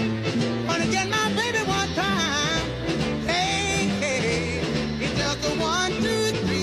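Background rock song with singing over a steady bass line and beat.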